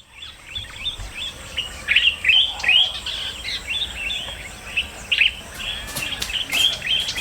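Birds chirping: many short, quick call notes in rapid succession, starting about a second in and keeping on.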